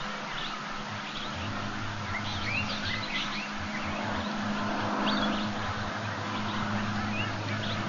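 Outdoor ambience through a webcam microphone: a steady hiss with a low hum beneath, and scattered short high chirps, some rising in pitch, from birds or the wild dogs.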